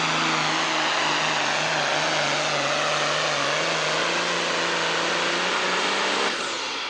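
A John Deere pro stock pulling tractor's turbocharged diesel runs flat out under load as it pulls the sled. It makes a loud, steady drone that rises slightly in pitch. Near the end the sound drops off sharply as the engine comes off full power.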